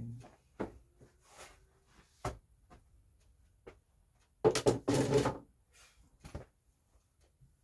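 Snow shovels knocking together as one is handled and leaned against the others: a few light knocks, then a louder clatter about halfway through.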